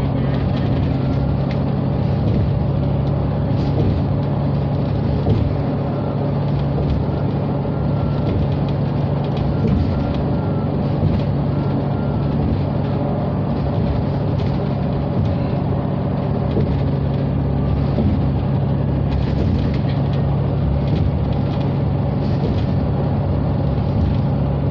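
Steady cabin noise from inside a bus running at speed: a constant low engine hum over road and tyre noise.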